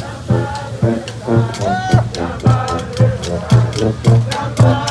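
Street brass band playing a second-line tune: horns in close harmony over a steady drum beat of about two hits a second, with one note bending up in pitch a little under two seconds in.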